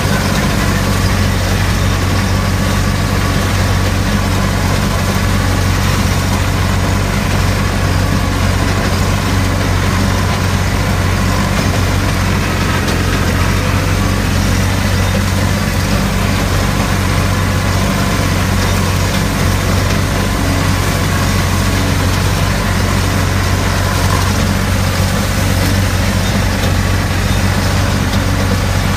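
Small diesel farm tractor's engine running steadily at an even speed, heard close up from the driver's seat as it drives along the crop rows.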